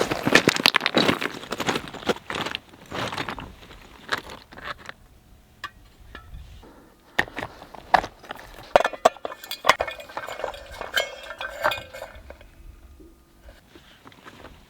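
Cooking gear being set up: a propane bottle-top burner and skillet, clinking and knocking as they are handled. Several clinks ring briefly, about nine to twelve seconds in.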